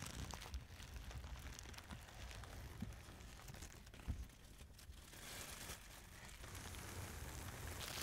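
Faint crinkling and rustling of a thin clear plastic bag being handled and worked off a face shield, with many small crackles throughout.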